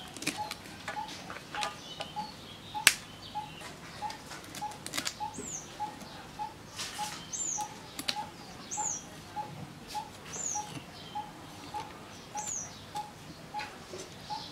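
Birds calling: one repeats a short single note about three times a second, and another gives five high, downward-sliding chirps. Under them come the scrapes and sharp clicks of a pangas fish being cut on a bonti blade, the loudest click about three seconds in.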